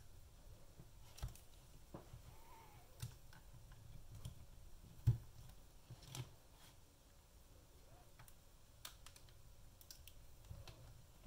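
Scattered, irregular faint clicks and taps of a knife blade working around the seam of a UE Roll speaker's plastic case, prying at its snap tabs; the loudest knock comes about five seconds in.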